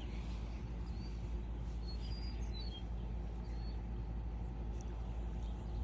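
A few short, high chirps from small birds over a steady low rumble.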